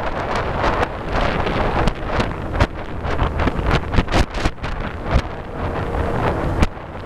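Heavy wind buffeting the microphone of a moving boat, with the steady low running of the boat's motor and rushing water underneath; the buffeting eases briefly near the end.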